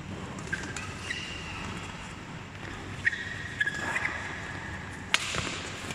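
Badminton rally: rackets striking the shuttlecock in sharp cracks several times, the loudest near the end, with players' shoes squeaking on the court mat in the first two thirds.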